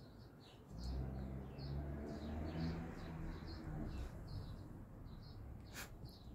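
Small birds chirping faintly in the background, with a low humming rumble from about a second in to about four seconds, and one sharp click near the end.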